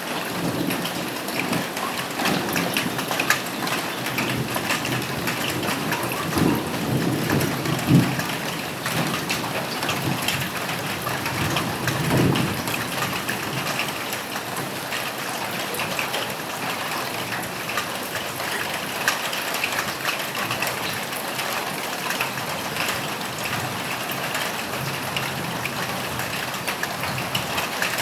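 Steady rain falling on a roof, with low rumbles of thunder about six to eight seconds in and again around twelve seconds.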